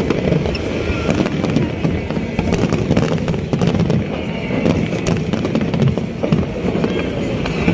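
Fireworks display: aerial shells bursting in a continuous run of sharp bangs and crackles over a dense, steady rumble.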